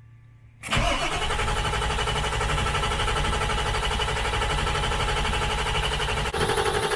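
The 2001 Ford F350's 7.3 L Power Stroke V8 turbo-diesel is cranked over about 0.7 s in, a sudden steady mechanical din, on a restart attempt just after five quarts of oil were added to an engine that was low on oil. The tone shifts slightly near the end.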